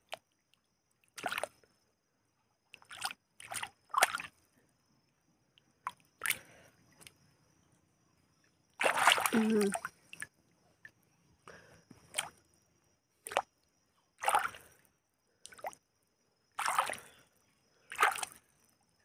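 A hand scooping and digging in shallow muddy water, making about a dozen short, separate splashes and sloshes. A longer, louder splash comes about nine seconds in.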